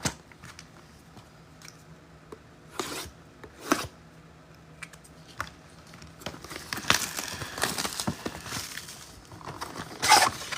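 A sealed hobby box of football card packs being opened by hand: a few taps and scrapes of cardboard at first, then from about six seconds in, plastic wrap and packs crinkling and tearing, busier and louder near the end.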